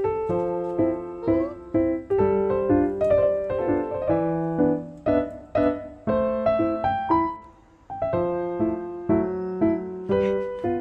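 Background piano music: a gentle melody of single struck notes and chords, each note fading after it is played, with a brief lull about three-quarters of the way through.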